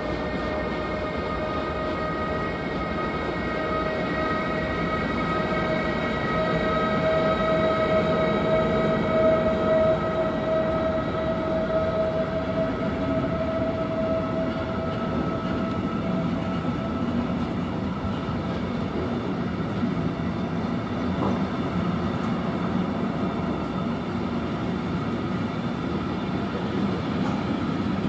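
Electric-hauled intermodal freight train of pocket wagons carrying semi-trailers rolling steadily past. A steady high whine sits over the rolling noise at first, loudest around the ninth second, and fades out about halfway through.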